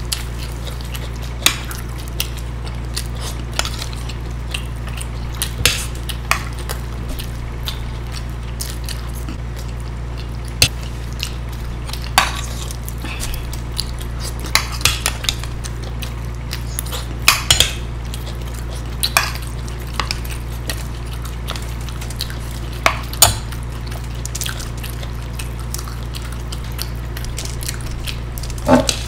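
Forks and a spoon clicking and scraping against plates, with eating and mouth sounds from two people eating macaroni. About a dozen scattered sharp clicks sound at irregular intervals over a steady low hum.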